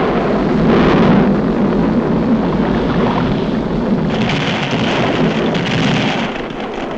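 Cartoon sound effect of a volcano rumbling and erupting: a continuous loud roar, with a hissing rush added about four seconds in.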